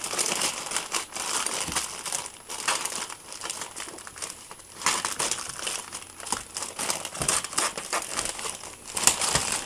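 Clear plastic shrink-wrap on a trading-card starter pack crackling and crinkling as it is cut with scissors and pulled away by hand, with many small crackles throughout.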